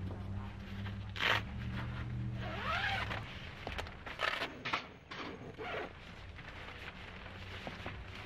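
Snow Peak tent's door zipper being pulled in several strokes: a short rasp, then a longer pull whose pitch rises and falls, then a few quick zips. A low steady hum underneath stops about three seconds in.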